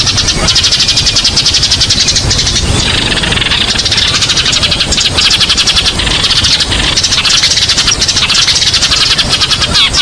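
Eurasian tree sparrows chirping: a dense, continuous stream of short, rapid chirps.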